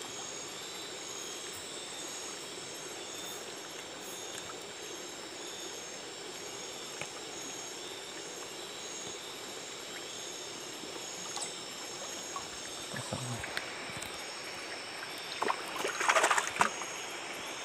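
Steady chorus of night insects with several high, pulsing trills, over a constant wash of running river water. About sixteen seconds in, a short stretch of splashing as a foot steps into shallow water.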